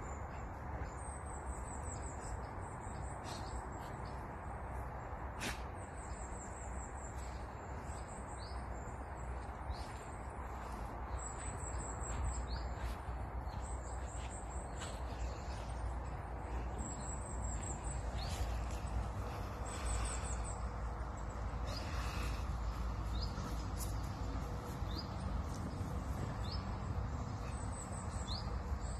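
Small birds singing: a high, thin run of quick falling notes repeated every second or two, with scattered single chirps, over a steady low rumble.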